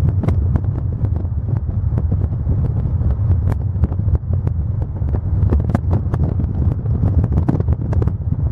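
Loud wind buffeting the microphone: a continuous low rumble with frequent crackling pops.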